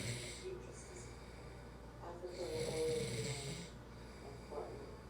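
A sleeping man snoring, one breath fading out near the start and another snore about two seconds later, roughly three seconds apart: snoring that the sleeper links to his sleep apnea and weight gain.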